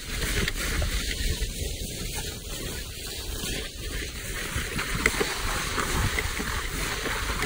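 Wind rushing over the microphone on a fast sled ride downhill, with snow hissing under the sled: a steady, loud rushing noise with a deep rumble.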